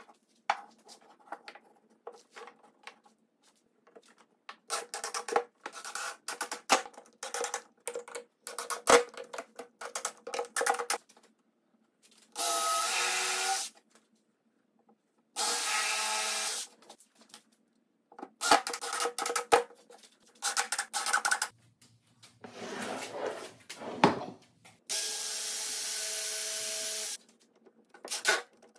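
Wooden boards knocked and shifted on a workbench, then a cordless drill driving screws into a softwood chair frame in three short steady runs, the longest about two seconds near the end.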